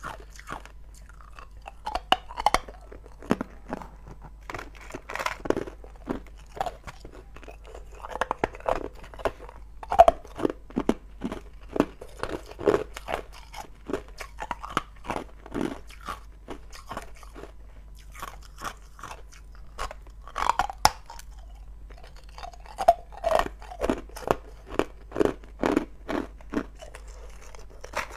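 Hard ice cubes being bitten and chewed: sharp, crisp crunches and cracks that come in clusters as each piece is broken up in the mouth, with a quieter stretch of a few seconds about two-thirds of the way through.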